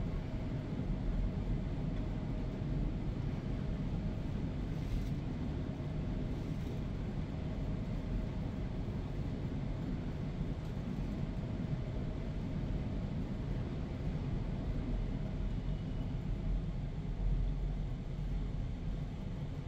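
Schindler lift car travelling in its shaft: a steady low rumble with a faint steady hum.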